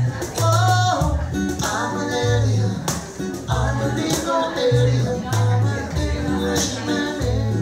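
Live acoustic performance: a strummed acoustic guitar with two men singing into microphones, over a repeated pattern of low notes.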